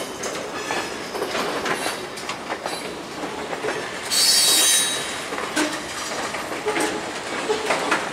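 Freight train of covered hopper cars rolling past, wheels clicking and rattling over the rail joints, with a loud, high-pitched wheel squeal for about a second around the middle.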